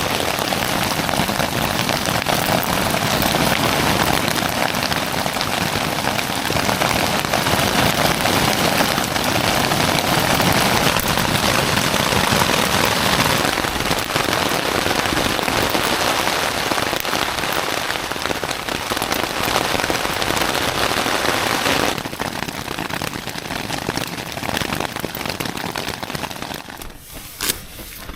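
Heavy rain coming down hard and steady, a dense hiss of drops; it eases somewhat about three quarters of the way through and thins further near the end.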